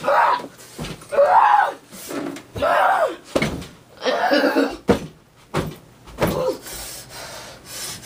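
A person's angry yelling and screaming in about five bursts, with a few sharp thumps from a mattress and bedding being thrown about.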